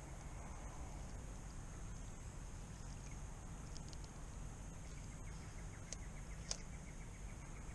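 Quiet creek-side bush ambience with a steady high-pitched insect drone over a low rumble. Two sharp clicks come a little before and after six seconds in.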